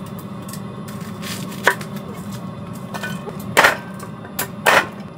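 Chef's knife chopping an onion on an end-grain wooden cutting board: a few separate, unevenly spaced strokes of the blade against the wood, the loudest two in the second half.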